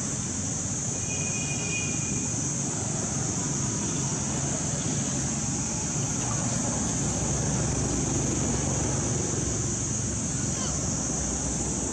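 Steady background noise: a low rumble with a constant high-pitched hiss over it, and a short faint high tone about a second in.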